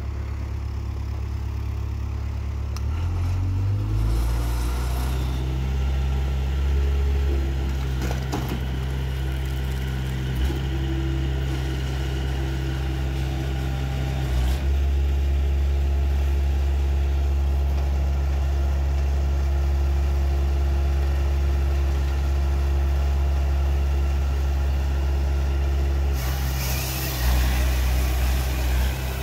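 Dyna SC-16 firewood processor running, its engine and hydraulics humming steadily; the engine pitch rises about three seconds in and shifts again about halfway through. A burst of louder noise comes near the end.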